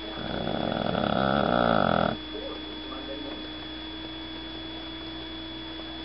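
One long snore with a fast rattling flutter, building in loudness for about two seconds and then stopping abruptly. A steady electrical hum runs underneath.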